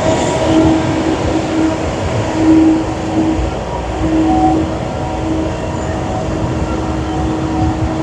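Engine noise: a steady drone over a broad rumble, the drone swelling and fading several times.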